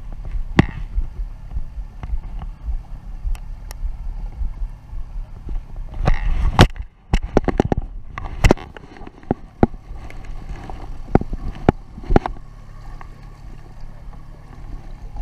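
Steady low hum of a boat's motor running, broken by scattered sharp knocks and clicks, which come most thickly about halfway through.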